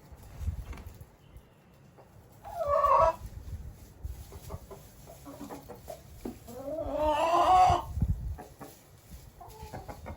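Chickens calling in a pen: a short loud call about two and a half seconds in, then a longer, rising call about six and a half seconds in. A low rumble runs underneath.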